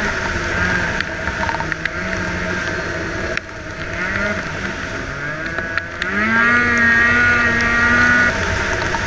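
Snowmobile engine running while riding: it eases off about a third of the way in, then revs up and holds a steady higher pitch before backing off near the end.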